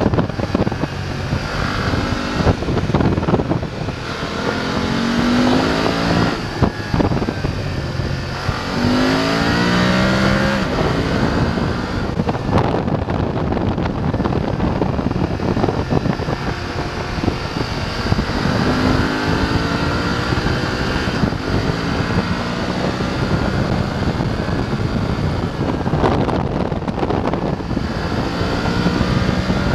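BMW F 850 GS parallel-twin engine under way, pulling up through the gears several times: the pitch rises, then drops at each shift, with steadier and easing-off stretches in between. The rider finds it not very good-sounding.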